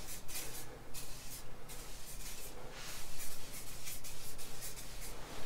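Aerosol can of S100 corrosion-protection spray hissing in several short bursts as it is sprayed over a motorcycle's metal parts.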